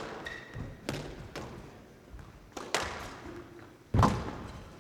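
Squash rally: the ball knocking off rackets and court walls in sharp hits about a second or so apart, the loudest about four seconds in. A brief high squeak sounds just after the first hit.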